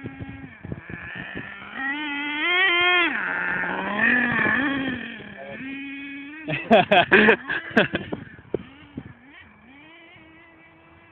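Small nitro engine of an HPI Savage X 4.6 RC monster truck revving up and down between steady stretches, with its chrome tuned exhaust. About two-thirds of the way through there is a quick run of loud, sharp cracks.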